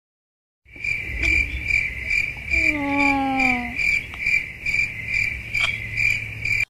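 Crickets chirping in a steady pulsing trill, about three chirps a second. It starts and stops abruptly, like an edited-in sound effect. A brief low falling tone sounds about halfway through.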